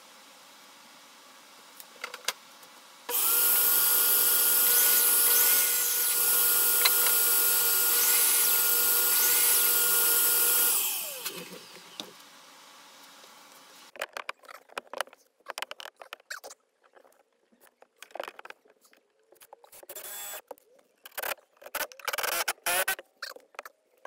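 Compound miter saw switched on: the motor starts suddenly, runs steadily for about eight seconds through a crosscut of a board, then winds down with a falling pitch. After it come short, irregular knocks and rattles of handling.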